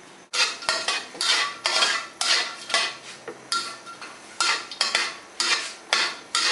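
Metal spatula scraping and knocking around a wok as Sichuan peppercorns and star anise are stirred in hot oil, in quick repeated strokes about two a second.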